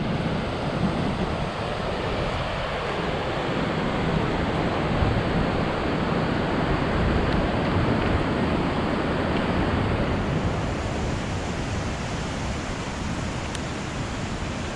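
Steady rushing of a creek running high after heavy rain.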